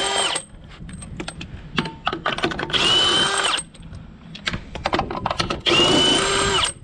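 Cordless drill with a socket spinning caravan wheel nuts off, running in three short bursts of about a second each with a steady whine. Light clicks and rattles of the socket and loose nuts between the runs.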